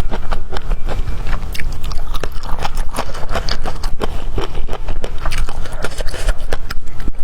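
Loud, close-miked chewing and biting of bamboo shoot: a steady run of sharp, wet crunches, several a second.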